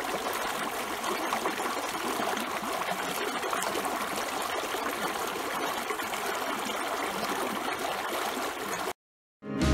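Water welling up through a shallow, rocky stream and running over the stones: a steady rush of water that cuts off abruptly about a second before the end.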